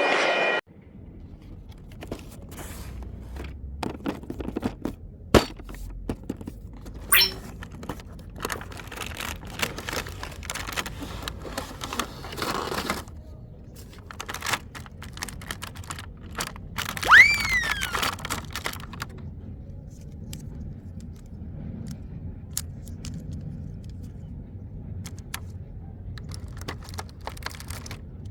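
Toy packaging being handled: scattered clicks, taps, rustles and short scrapes, with one brief squeak falling in pitch about two-thirds of the way through.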